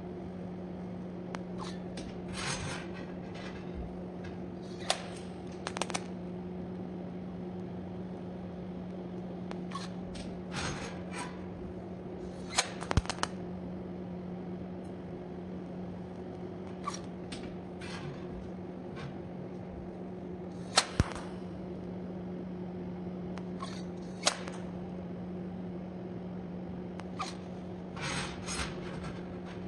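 Scattered sharp metal clicks and knocks with a few short scrapes, typical of iron round bar being handled and worked by hand, over a steady low hum.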